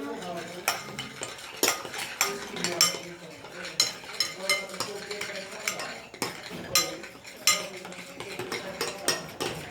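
A spoon stirring a thick mix of glue and shaving foam, knocking and scraping against the sides of the container in quick, irregular strokes.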